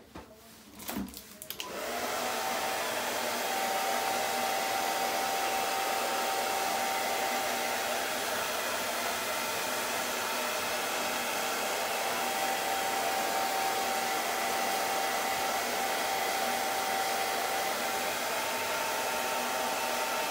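Handheld hair dryer switched on about two seconds in, then running steadily: a rush of air with a steady whine over it.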